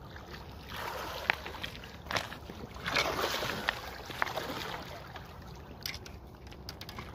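A hooked sturgeon thrashing and splashing in shallow water, in bursts about a second in and around three seconds in, with scattered sharp clicks.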